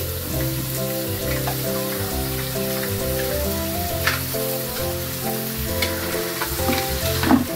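Green mussels sizzling in a hot wok as they are stir-fried, with a metal ladle scraping and clinking against the pan a few times. Background music with held notes plays throughout.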